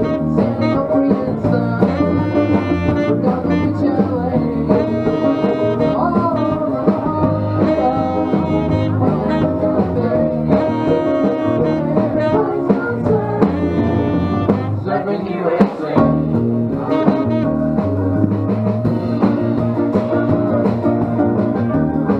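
Live band playing an instrumental break without vocals, with a lead instrument over guitar, bass and drums at a steady loud level.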